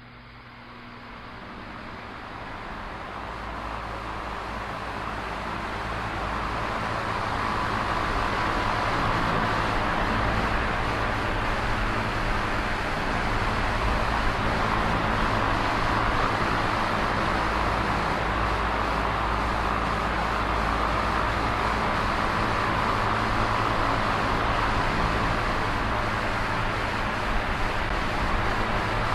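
Electric fan switched on: a whooshing rush of air with a low motor hum that grows louder over the first several seconds as the blades come up to speed, then runs steadily.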